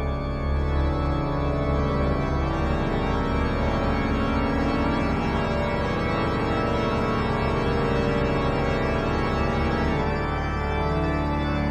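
Church pipe organ playing, full and sustained, with deep low notes held beneath changing chords.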